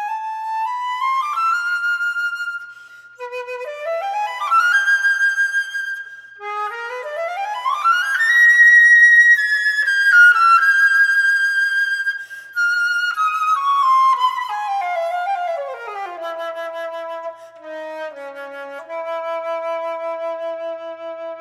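Solo flute playing a classical piece: quick rising runs climb to a high held note about halfway through, then a descending run falls to slow low notes in the last few seconds.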